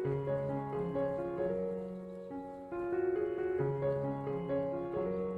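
Background piano music, a melody of notes changing about every half second.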